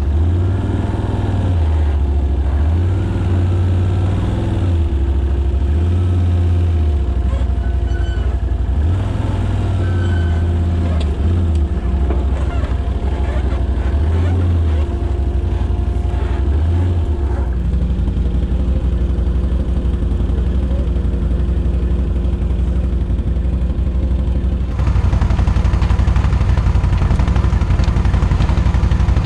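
ATV engine running under varying throttle as the quad is ridden up a rough dirt trail, heard from an onboard camera, with a low rumble that swells and falls every second or two. About 25 s in, it cuts to a louder, steadier engine sound as an ATV crawls toward a trailside camera.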